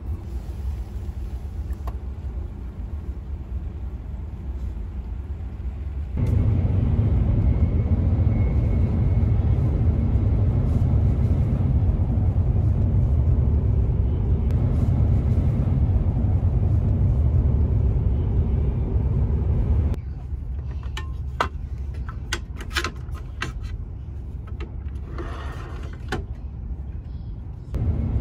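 Steady low rumble of an E7-series Shinkansen running at high speed, heard inside the passenger cabin. The rumble steps up about six seconds in and drops back about twenty seconds in, with a few light clicks in the quieter last part.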